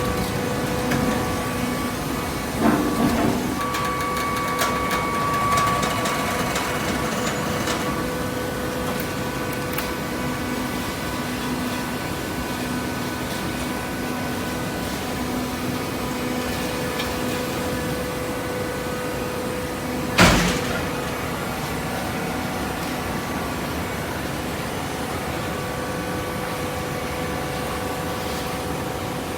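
Hydraulic horizontal cardboard baler running: a steady machine hum with several held tones, a short clank about three seconds in and one sharp, loud bang about twenty seconds in.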